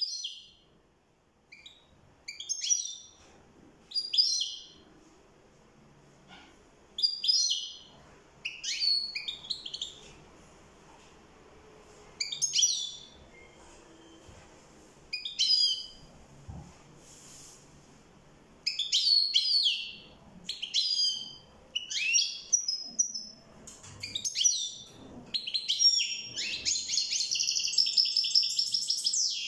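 European goldfinch (chardonneret) giving short twittering phrases every second or few, coming closer together, then breaking into continuous twittering song near the end.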